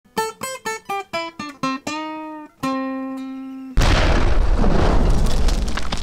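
Channel intro sting: a quick run of short pitched notes, then two longer ringing notes, then at about four seconds a loud rushing boom with heavy bass that carries on to the end.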